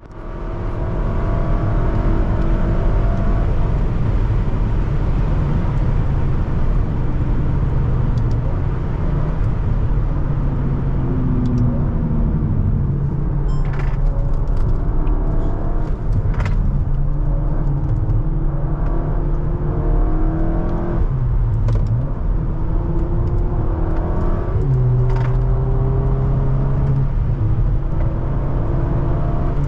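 Cupra Ateca's turbocharged 2.0-litre four-cylinder EA888 engine heard from inside the cabin, pulling under acceleration: the engine note climbs, drops as the seven-speed DSG shifts up, and climbs again, several times over. A few short sharp clicks stand out now and then.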